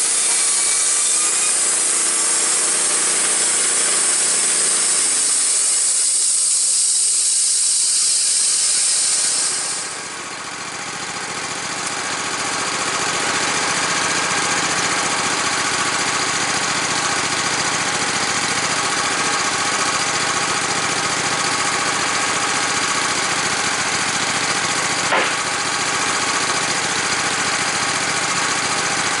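Wood-Mizer LT15 bandsaw mill's band blade cutting through a white oak log, its petrol engine running under load; the cut ends about ten seconds in and the engine keeps running steadily. A single sharp click near the end.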